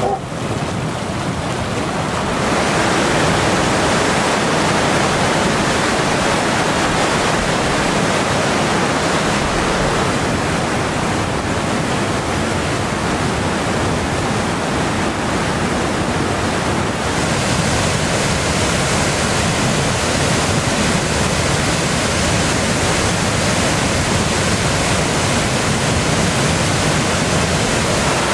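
Flash floodwater, thick with mud and debris, rushing in a loud, steady noise of churning water. It grows louder about two seconds in and turns brighter and hissier a little past halfway.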